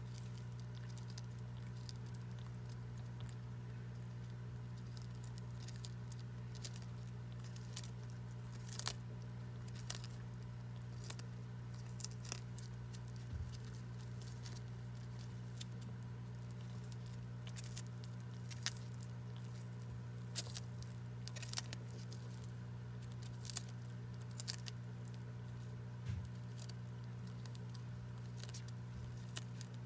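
A Horsfield tortoise biting and chewing hand-fed leafy greens: irregular small crunches and leaf-tearing clicks, some in quick runs, over a steady low hum.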